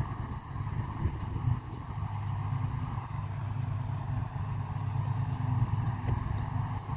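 Diesel engine of harvest machinery in a barley field running steadily under load, a constant low drone.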